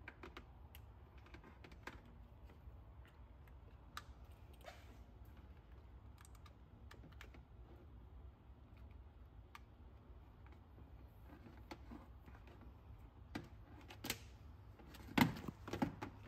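Light, scattered plastic clicks and ticks as the LED underglow kit's control box and wiring-harness connectors are handled and plugged together, over a steady low hum. A few louder knocks come near the end.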